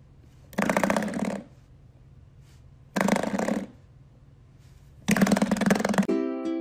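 A brown duck hen gives three long rasping quacks, each just under a second, as a finger pokes her back. Ukulele music starts near the end.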